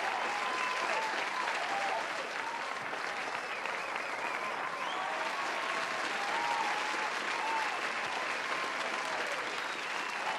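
Steady applause, with voices calling out over it.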